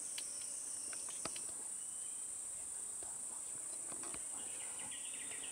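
Steady high-pitched drone of insects, with a sharp click about a second in.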